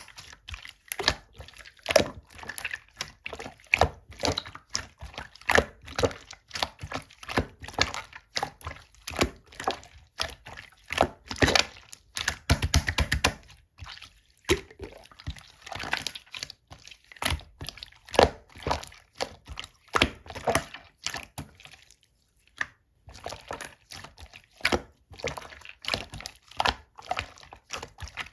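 Clear slime being squeezed, poked and pressed by hand, making rapid, irregular wet clicks and pops, several a second, with a brief pause about three-quarters of the way through.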